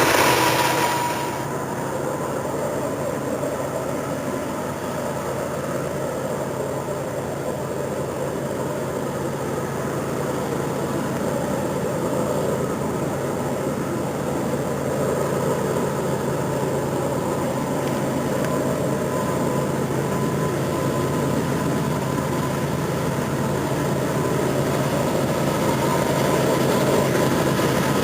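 Train rolling past with a steady rumble and a low hum. A high squeal fades out about a second in.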